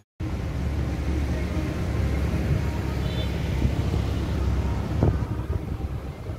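Outdoor city street ambience: a steady rumble of passing road traffic, with a short knock about five seconds in.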